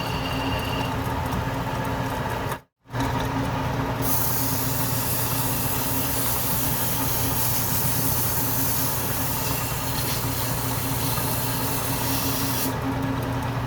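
Metal lathe running steadily with a constant motor hum and a hiss of work at the spindle. It drops out for an instant about three seconds in, and the hiss grows stronger from about four seconds in until shortly before the end.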